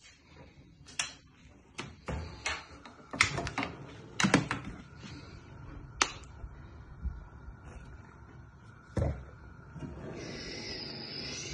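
Kitchen handling noises at a gas stove: irregular clicks and knocks of frying pans and a plastic oil bottle being handled, then a steady hiss over the last second or so.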